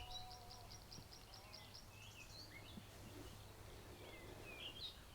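Faint, distant man singing, with a held note or two in the first couple of seconds. Birds chirp around it, including a fast run of high ticks at about seven a second that stops about two seconds in.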